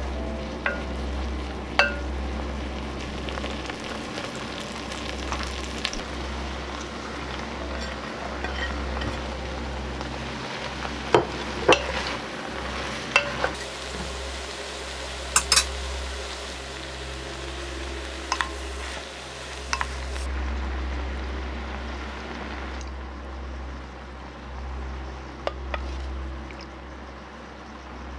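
Vegetables and noodles sizzling in a pot as they are stir-fried, with a wooden spoon stirring and knocking against the pot now and then in sharp clicks. A steady low hum runs underneath.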